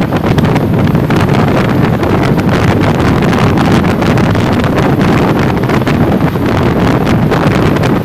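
Heavy wind buffeting on the microphone over the continuous rumble of road traffic and vehicle engines, as if filmed from a moving motorcycle; no horn sounds.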